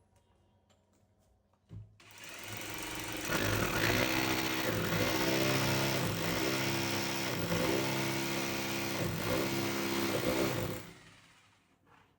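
Power drill running, starting about two seconds in just after a single knock, running at full speed for about nine seconds with a regular wavering in pitch, then stopping.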